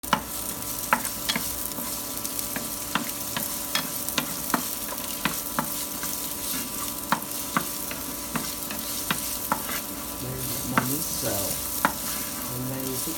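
Julienned carrots sizzling in oil in a nonstick frying pan while a wooden spatula stirs them. The spatula knocks and scrapes against the pan in sharp taps, about two a second, over a steady sizzle.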